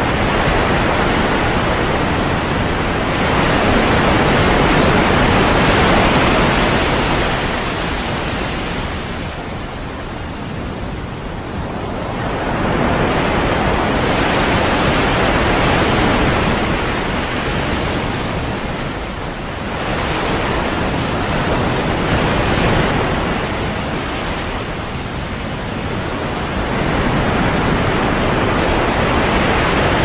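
Surf of a calm sea: waves washing in and drawing back, the rush of water swelling and easing in slow surges several seconds apart.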